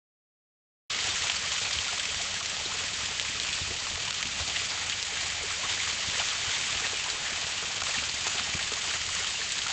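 Water running from a garden hose: a steady hiss of flowing water that starts abruptly about a second in after silence.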